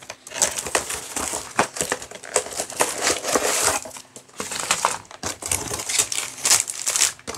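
Cardboard box and paper packaging rustling and crinkling continuously as the contents of a diamond-painting clock kit are pulled out by hand, with scattered small taps and scrapes.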